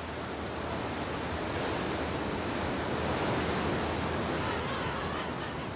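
Sea surf washing, a steady rush of water that swells a little and then eases.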